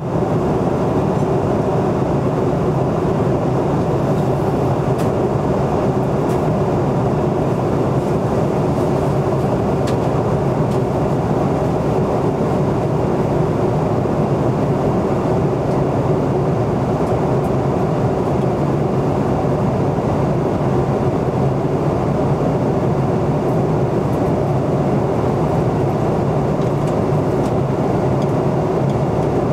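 Airliner cabin noise in cruise: a steady rush of engine and airflow noise with a low, even hum, unchanging throughout.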